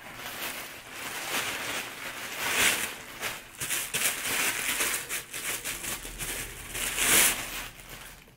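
Thin plastic wrapping crinkling and rustling as a boxing glove is worked out of its bag, with louder crackles about two and a half seconds in and again near the end.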